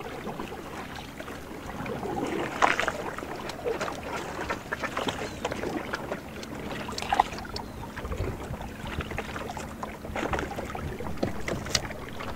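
Water splashing and sloshing in a canoe, with scattered irregular knocks and clatters as bodó catfish are worked out of a gill net.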